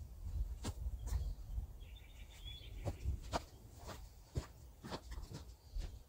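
Uneven low rumble of wind on the microphone, with scattered faint clicks and knocks. A brief bird chirp comes about two seconds in.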